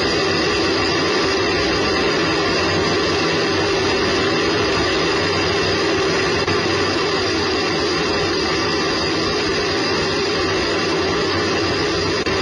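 Space Shuttle solid rocket booster firing in ascent, heard through a camera mounted on the booster itself: a loud, steady, unbroken rushing noise with a few faint steady tones running through it.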